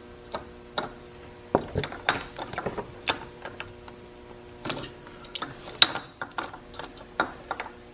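Irregular clicks and clinks of hand tools and engine parts being handled as the camshaft goes into a Honda TRX400EX engine's top end.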